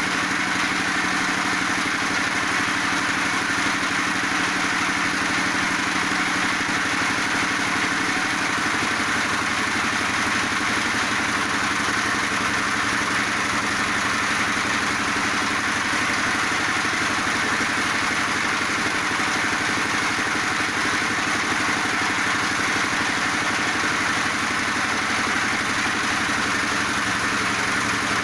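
Feed pellet machine running steadily, a continuous engine-like drone; its tone shifts slightly about nine seconds in.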